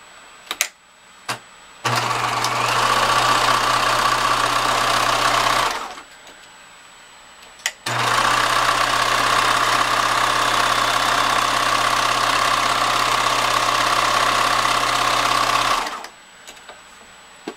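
Bernina 1011 sewing machine running steadily while it stitches fabric, in two runs: one of about four seconds starting about two seconds in, then after a short stop one of about eight seconds. A few sharp clicks come before and between the runs.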